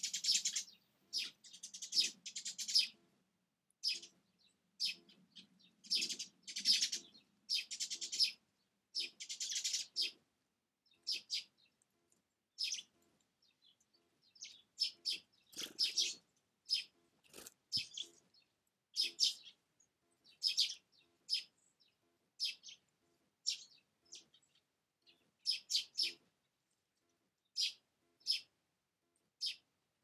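Small songbirds calling: short, high chirps repeated about once or twice a second, with longer, denser buzzy calls in the first ten seconds.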